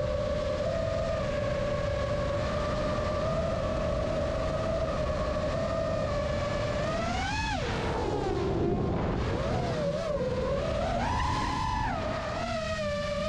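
A 5-inch FPV quadcopter's motors and propellers whine as heard from the onboard camera, the pitch held steady for the first several seconds. About seven and a half seconds in the whine swoops up and drops sharply with a throttle punch and chop, then keeps rising and falling with the throttle, over a steady low rumble.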